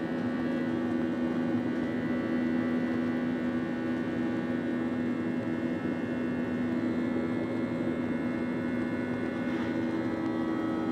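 Boeing 737-900's CFM56-7B turbofan engines heard from inside the cabin during the climb after takeoff: a steady drone with several steady humming tones.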